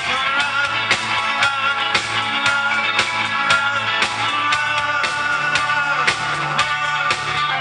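Rock band playing an instrumental passage: held guitar notes over bass and a drum kit keeping a steady beat of about two hits a second.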